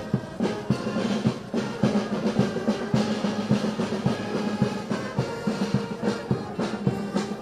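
Band playing a march, with a steady drum beat under long held notes.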